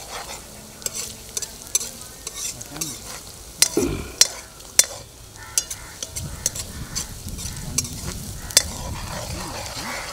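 Sliced onions sizzling in hot oil in a large iron kadai while a steel ladle stirs them, scraping and clinking against the pan again and again.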